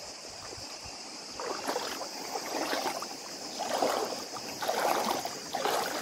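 Footsteps wading through a shallow stream, each stride splashing, about one step a second starting a second or so in, over a steady rush of flowing water.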